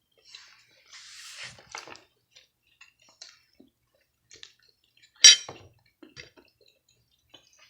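Cutlery clinking against a dinner plate while eating: scattered light taps, a short scrape about a second in, and one sharp, ringing clink about five seconds in.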